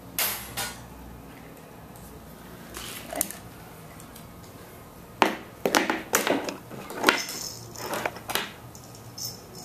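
A cat crunching a dry treat: a run of short, sharp crunches, thickest in the second half.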